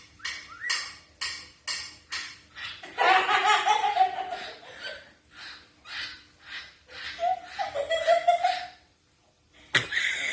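Quick rhythmic scraping, hissing sounds, about three a second, made by mouth in imitation of a spoon scraping a dish. About three seconds in it breaks into loud laughter, which comes in bursts with a short pause near the end.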